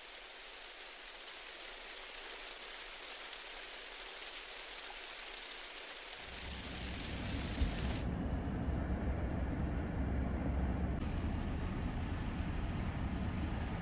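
Rain spattering on a car's window and body as a steady hiss. About six seconds in, a low rumble comes in. About two seconds later the hiss cuts off and only the low rumble carries on.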